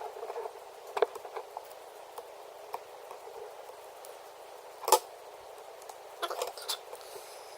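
Scattered light clicks and taps from handling small tools and iPad parts on a work surface, the sharpest about five seconds in, over a steady low hiss.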